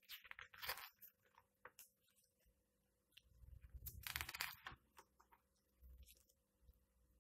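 Pages of a large hardcover comic book turned by hand: quick bursts of paper rustling and swishing. There are two main bursts, one in the first second and a longer one around four seconds in, with lighter rustles between.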